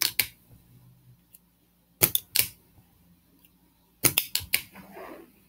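Hard plastic clicks and clacks of Lego parts in three quick clusters about two seconds apart: the Lego Slam Dunk set's lever-driven launch arm being struck and snapping up, and the minifigure and pieces knocking against the build as they are reset.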